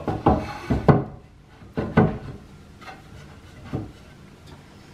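Wooden shelf board knocking against the wooden arms and stabilizers of a display stand as it is seated: a few sharp knocks in the first two seconds and one more near the end.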